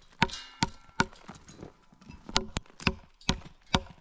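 Bark being knocked off a frozen log with a long-handled, flat-bladed bark-peeling spud: about eight sharp chopping blows of steel on wood, in two quick runs.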